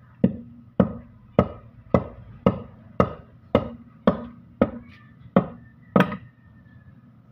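A cast-metal Mitsubishi Canter gearbox housing knocked repeatedly against a concrete floor: about a dozen sharp knocks, roughly two a second, each with a brief metallic ring, to jar loose the shaft inside.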